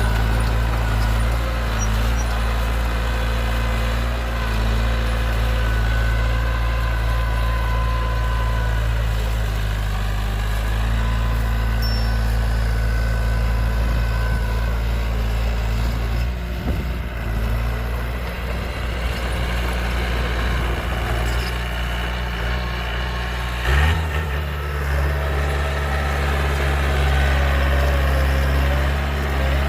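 Heavy diesel engine of earth-moving equipment running steadily. It turns rougher for several seconds, then shifts suddenly to a new steady note about three-quarters of the way through.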